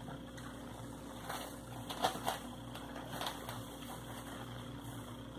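Hand kneading soft, wet tamale masa in a plastic bowl: a few faint squishing sounds over a steady low hum.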